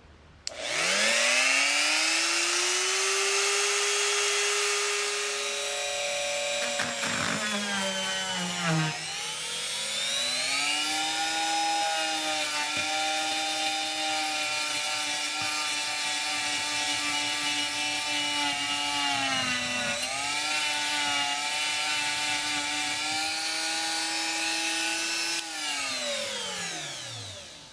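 Small high-speed electric rotary tool spinning up, then sanding the broken plastic edge of a float smooth: a steady whine whose pitch sags when the tool is pressed into the work, twice, before it winds down to a stop near the end.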